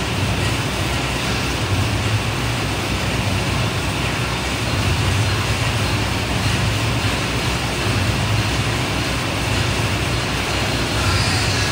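Stationary exercise bike's fan flywheel whirring steadily under hard, continuous pedalling.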